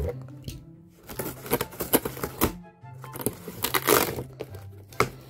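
Packing tape on a cardboard box being slit with a blade: a run of sharp crackles and scrapes from the tape and cardboard, loudest about four seconds in. Background music with a steady low bass plays underneath.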